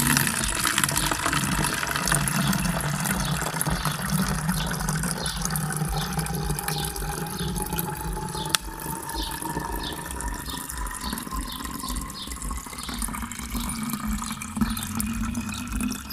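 Fermented coconut water poured in a steady stream into a plastic drinking-water bottle, its filling note slowly rising in pitch as the bottle fills.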